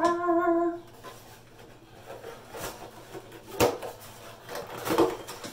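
Rubbing and rustling of a rubber mask being tugged and pulled on over another mask, with a few sharp knocks, the loudest about three and a half and five seconds in.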